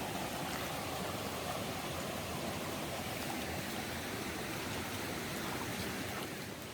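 Valley stream running steadily, an even rush of water that drops slightly in level near the end.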